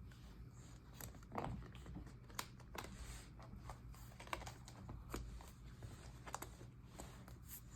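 Faint, scattered small taps and clicks with soft rustling: hands handling a paper planner and its pages on a desk.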